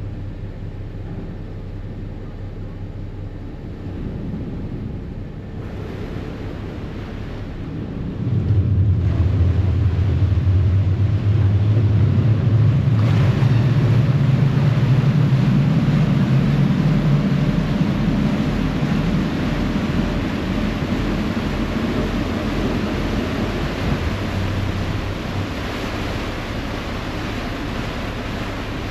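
A harbour ferry's diesel engines running at low power, then opening up about eight seconds in with a louder, rising drone as the propellers churn the water and the boat pulls away from the wharf. Rushing water and wind on the microphone build as it gets under way.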